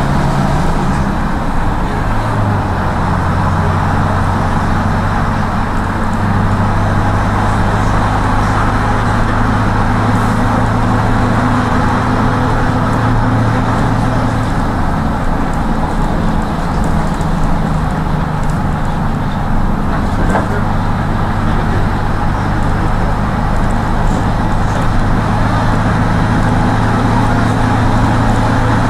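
Inside a marshrutka minibus on the move: a steady low engine hum over road and tyre noise, the engine note shifting slightly a couple of times.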